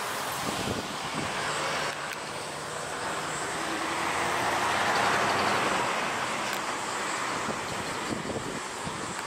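Road traffic: a vehicle passing close by, its noise swelling to a peak about five seconds in and then fading.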